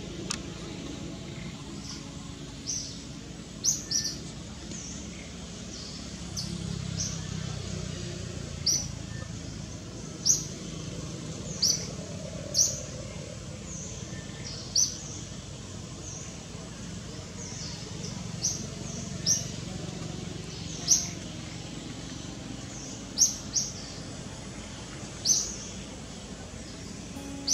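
Short, high-pitched bird chirps, single or in pairs, repeating irregularly every second or two over a steady low background rumble.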